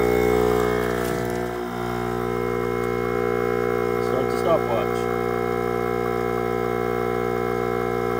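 Viair 400P 12-volt air compressor running steadily with a loud, even hum, just switched on and airing up four tires at once through a manifold.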